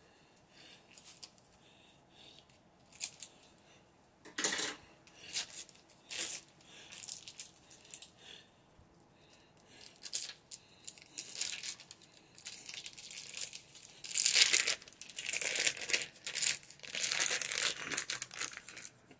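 Wrapper of a cream cheese block being handled and torn open, heard as irregular bursts of crackling, sparse at first and busiest over the last few seconds.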